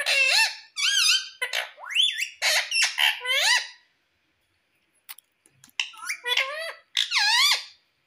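Indian ringneck parakeet chattering in a rapid string of high, squeaky calls whose pitch swoops up and down. The calls break off midway, when a few short clicks are heard, then start again for about a second and a half near the end.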